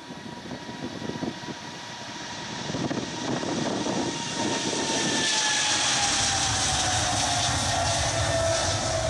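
Delta Boeing 777-200 jet engines at takeoff thrust during the takeoff roll, the roar building as the airliner approaches and passes. A high engine whine slides down in pitch as it goes by.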